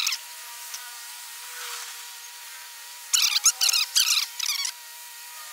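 Mobile crane handling iron blocks, heard thin with the low end cut away: a steady whine, then a cluster of harsh scraping squeals about three to four and a half seconds in.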